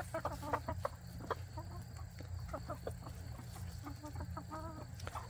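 A flock of cheonggye (green-egg-laying) chickens clucking while foraging in grass: many short, overlapping clucks, busiest in the first second and with a quick run of notes near the end, over a steady low rumble.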